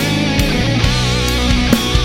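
Instrumental rock music: distorted electric guitars over bass and drums with a steady beat, one guitar line wavering in pitch like a sung or bent lead.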